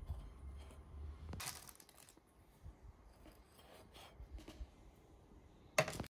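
Metal fork scraping and knocking against a metal baking tray and a china plate as baked pastries are lifted and set down: a short scrape about a second and a half in, a few light ticks, and a sharp knock near the end.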